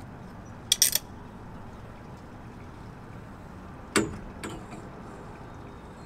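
Handling noise from a metal antenna pole and its cable: a quick metallic jingle-rattle about a second in, then a single knock at about four seconds with a lighter tap just after, over a steady low background rumble.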